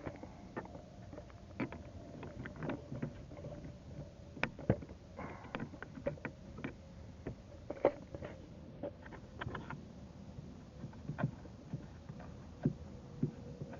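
Irregular clicks and light knocks of a hand wrench or socket working a 10 mm bolt and metal parts being handled at a car battery's mounting.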